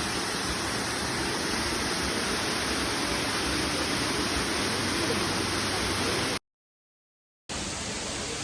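Waterfall rushing: a steady, even roar of falling water. It cuts out to dead silence for about a second near the end, then comes back.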